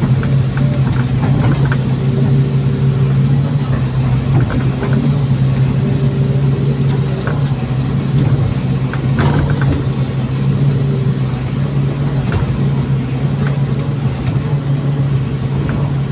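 Hydraulic excavator's diesel engine running steadily under load while the bucket digs soil, heard from inside the cab, with a few scattered clicks and knocks.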